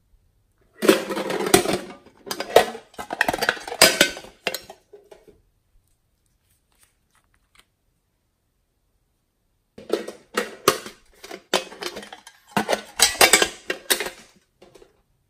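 Two spells of rapid crackling and rattling clicks from small plastic slime-making supplies being handled, one about a second in and one from about ten seconds in, with a quiet gap between.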